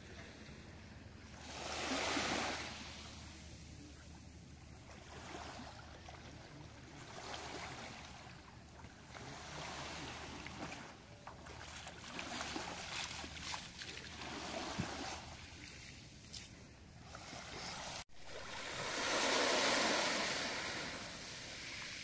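Small sea waves washing onto a pebbly beach in repeated swells, the loudest about two seconds in and near the end. The sound drops out for an instant about eighteen seconds in.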